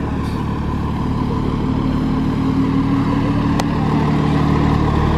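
Motor vehicle engine running, a steady low hum with a whine that rises slightly and grows a little louder over the first few seconds.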